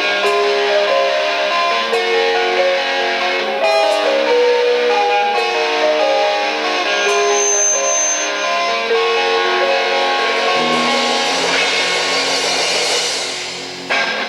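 Band music led by guitar playing a quick run of melodic notes. A low held chord comes in about ten and a half seconds in and fades, and a final hit sounds just before the music stops.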